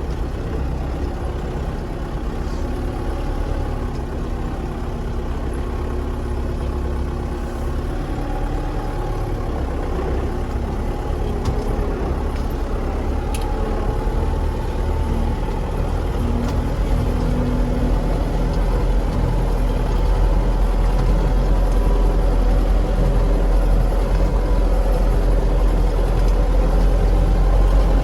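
A farm vehicle's engine running steadily, growing gradually louder.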